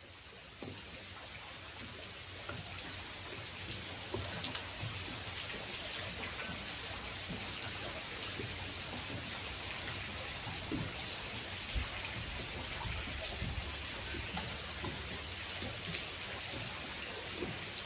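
Rain falling steadily on the lake, growing louder over the first few seconds, with scattered individual drops standing out above the hiss.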